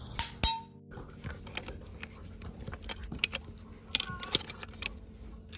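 Farrier's steel hand tool clinking against a steel horseshoe and hoof stand: two sharp ringing clinks just after the start, then scattered light taps and scrapes.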